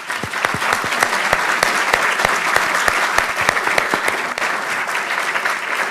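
An audience applauding: dense, steady clapping from many people, loud throughout.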